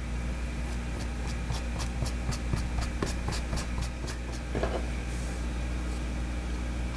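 Light scratching and quick ticks, about five a second over the first few seconds, as stiffening two-part auto body filler is scraped and rubbed by hand on a cardboard mixing board. The filler has already set too far to work with. A steady low shop hum runs underneath.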